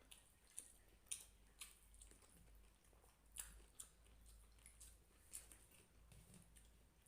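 Person chewing and eating a mouthful of rice and hilsa fish curry: faint, irregular wet mouth clicks and smacks.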